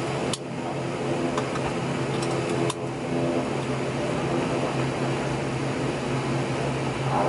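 Airliner engines running at taxi, heard inside the passenger cabin as a steady droning hum with a couple of sharp clicks, the first about a third of a second in and the second near three seconds. Right at the end the noise grows louder as the engines begin to power up for take-off.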